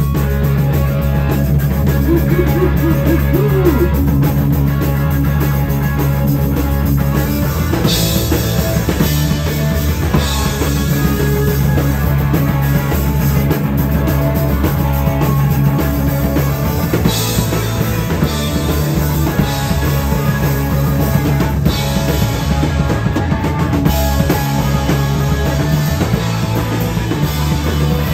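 Rock band playing live: electric guitar, bass guitar and drum kit, with recurring cymbal crashes over sustained bass and guitar notes.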